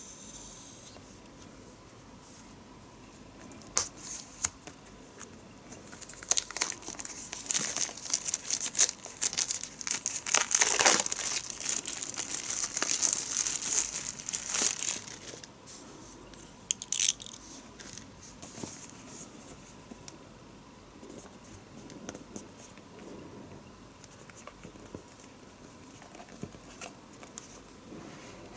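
Product packaging being unwrapped by hand, with tearing and crinkling. There are a few clicks at first, then about ten seconds of dense tearing and crinkling, a sharp click a little after that, and then quieter handling.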